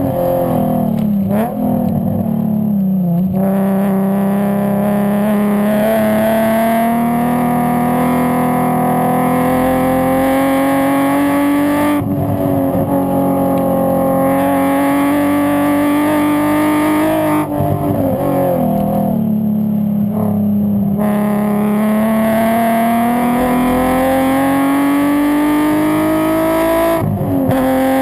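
Nissan 350Z's VQ35 V6 engine and exhaust under hard track driving, loud throughout. The note climbs slowly through long pulls, and twice, near the start and about two-thirds of the way through, the pitch falls sharply and turns rough as the car slows and shifts down before climbing again.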